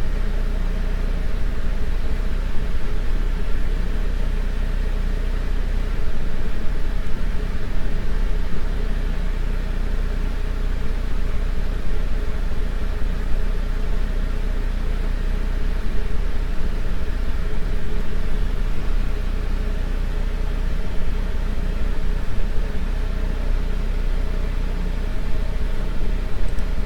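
Steady low rumble with a hiss over it, unchanging throughout: constant background noise with no distinct events.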